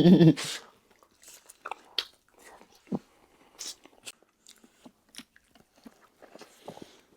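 People chewing and biting food, heard as a scatter of short, irregular mouth clicks and smacks.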